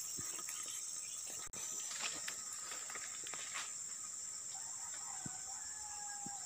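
A steady high-pitched insect chorus, with scattered faint ticks and rustles. A faint thin drawn-out tone comes in about four and a half seconds in.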